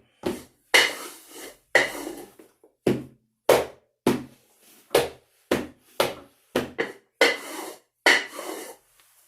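A run of irregular knocks and thuds, about one or two a second, each starting sharply and dying away, the last two longer: sound effects of a heavy wooden cross being carried through the streets.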